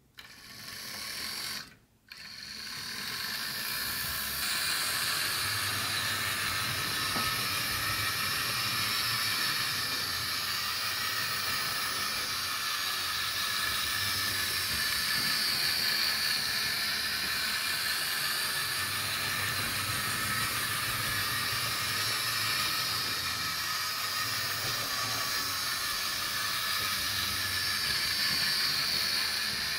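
HO-scale electric model train running on its track: the steady whirr and rattle of the small locomotive motor and wheels on the rails. It starts about two seconds in, builds up, and then rises and falls gently in level.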